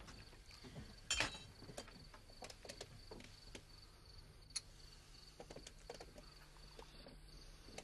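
Faint steady hiss with a thin high tone, broken by scattered small clicks and knocks; the loudest knock comes about a second in.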